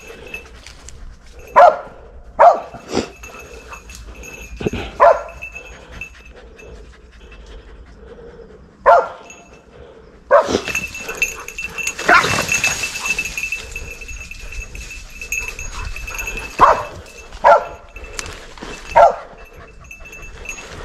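Hunting dogs barking: about ten sharp single barks at irregular intervals, with a few close pairs.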